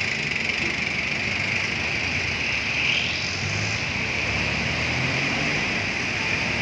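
Steady street background noise: a low traffic rumble under a constant hiss.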